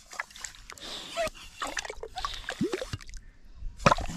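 A hand-held yabby pump working a hole in wet tidal mud: short, irregular sucking squelches and splatters of mud and water, with a few brief rising squelches as suction breaks.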